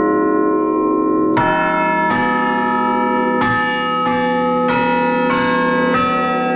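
Tower chime of tuned bells playing a melody, heard up close from inside the belfry: about seven notes struck one after another, the first a little over a second in, each ringing on long and overlapping the next.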